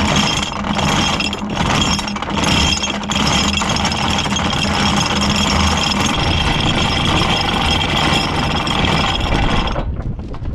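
5/16-inch anchor chain running out freely through the gypsy of a bronze anchor windlass with its clutch freewheeling, a continuous loud metal rattle and clatter as the links run over the deck and bow fitting. It stops suddenly near the end.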